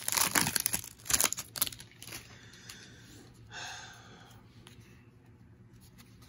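Foil wrapper of a trading-card pack crinkling and tearing open, loud for the first two seconds or so. Then it gives way to the quieter rustle of the stack of cards being pulled out and handled.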